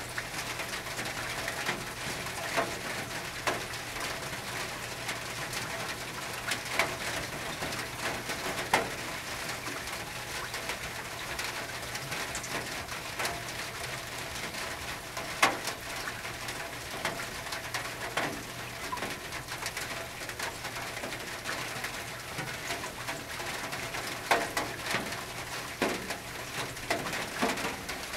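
Rain falling on a tin roof: a steady hiss with irregular sharp drops striking the metal. A bird calls now and then over it.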